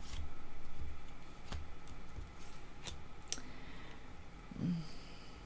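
Oracle cards being handled on a tabletop: soft rustling and light thuds as cards are moved and laid down, with a few sharp clicks as they are set or tapped in place.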